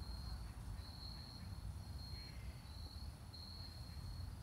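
An insect chirping in short, high, single-pitched trills, repeating roughly once a second, over a faint low rumble.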